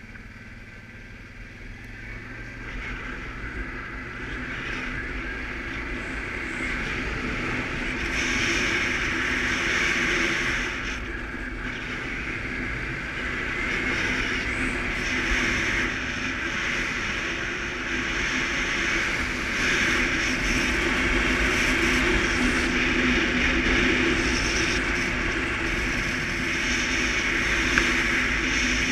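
Suzuki KingQuad ATV's single-cylinder engine running under way, with wind and road noise. It grows louder over the first eight seconds or so, then holds steady.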